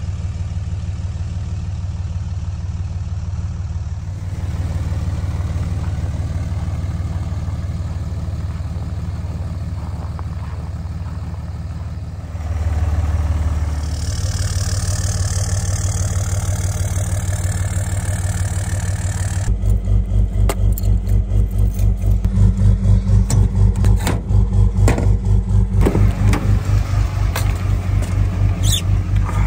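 Dodge Ram 2500 pickup's engine idling steadily just after a cold start, run with the engine preheated. About two-thirds of the way in it becomes louder and pulsing, with scattered clicks and knocks near the end.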